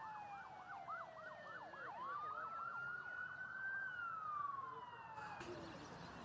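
Several emergency-vehicle sirens sounding together: one in a fast yelp, others in slow rising and falling wails. They cut off suddenly about five seconds in, leaving a steady noisy background.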